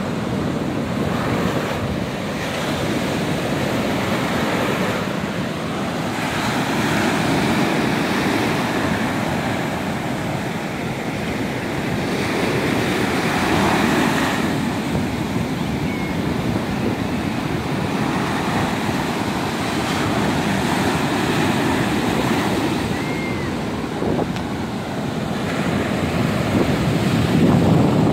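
Ocean surf breaking on a sandy shore: a continuous rush of waves that swells and eases every few seconds, with wind on the microphone.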